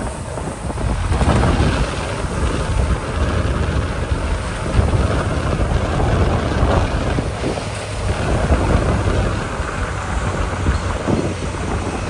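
Twelve-wheel dump truck's diesel engine running hard to raise the tipper bed while a load of gravel slides out and pours onto a pile in a steady rush. A continuous low rumble, with wind buffeting the microphone.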